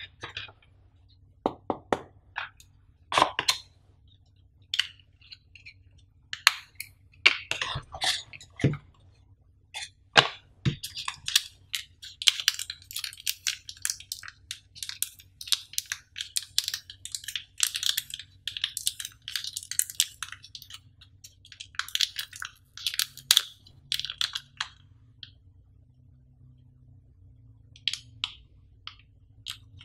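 Packaging being handled by hand: a few sharp taps and rustles, then a long run of crinkling from a small plastic pouch of spare earphone ear tips being opened and handled. The crinkling pauses about 25 seconds in and starts again near the end.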